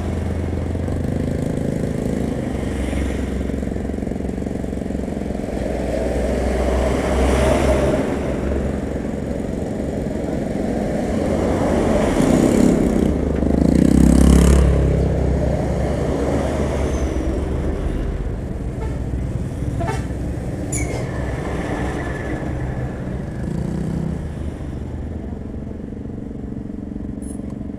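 Idling truck and motorcycle engines in a stop-start traffic queue, with vehicles pulling past close by. The engine noise swells as they go by, most strongly about halfway through.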